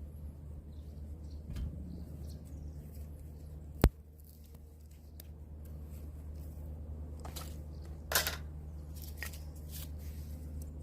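Scattered small clicks and rustles of handling, with one sharp click about four seconds in and a short crackle just after eight seconds, over a steady low hum.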